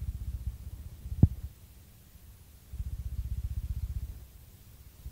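A low throbbing rumble that comes and goes in stretches of a second or two, with one sharp click about a second in.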